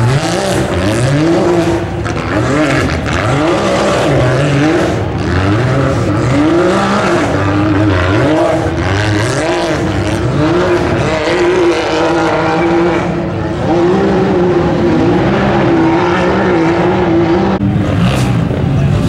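Rock bouncer buggy's engine revving hard on a steep dirt-and-rock hill climb, its pitch rising and falling again and again as the throttle is worked. Near the end the note breaks off sharply.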